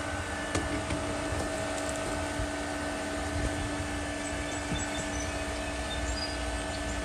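Pool filter pump running steadily at full speed after a restart, a constant hum with steady whining tones over a broad rushing noise. A light click about half a second in.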